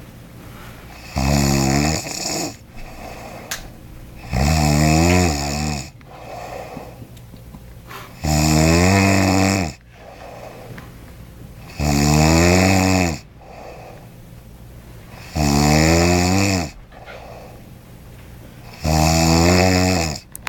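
A man snoring loudly in his sleep: six long snores about three and a half seconds apart, each with a wavering pitch, with quieter breathing between them.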